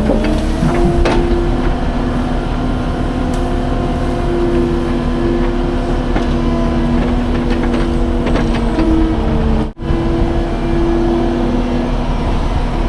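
An engine running steadily. Its pitch steps up slightly just after the start, a few sharp knocks come through, and the sound cuts out for a split second near the end.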